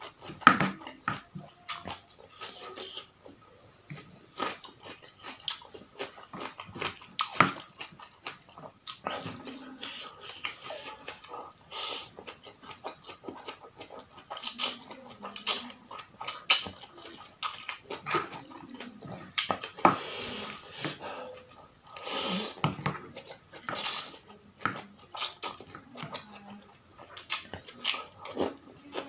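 Close-miked eating of spicy noodle soup: irregular wet chewing, smacking and crisp bites, with a couple of longer slurps about two-thirds of the way in.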